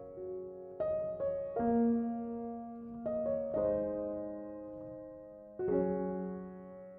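Slow, gentle piano music: single notes and soft chords struck every second or two, each left to ring and fade.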